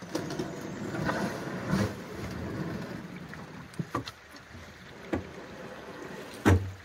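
A loaded canoe being pushed off a rocky shore: the hull scrapes over the stones for the first couple of seconds, followed by a few scattered knocks against the hull. The loudest is a heavy thump near the end.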